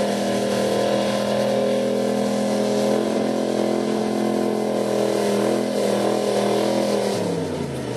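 Gasoline engine of a Super Street gas-class pulling pickup running at steady high revs, then dropping in pitch near the end as it comes off the throttle.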